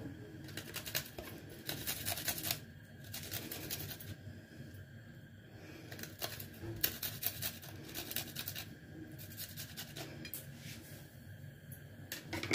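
Garlic cloves being grated on a hand grater, a run of short, irregular scraping strokes.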